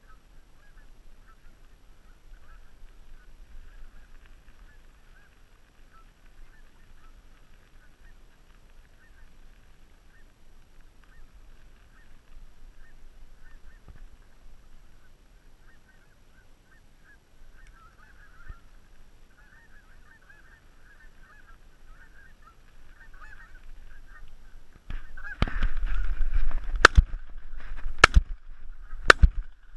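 Canada geese honking continuously, growing louder near the end as they come in close, then a quick series of shotgun shots about a second apart.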